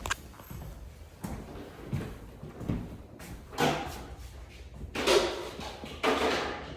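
Irregular knocks, scrapes and rustling from things being handled and moved about, with louder rough bursts about midway and near the end.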